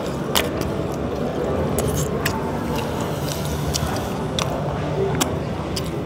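Steady background din of a busy shopping-mall food court: a constant low hum and murmur of voices, with scattered sharp clicks and clinks.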